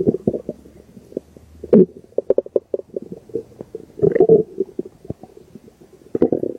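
Stomach growling: irregular gurgles and bubbly pops. The loudest gurgles come about two seconds in and about four seconds in, with a quick string of pops between them.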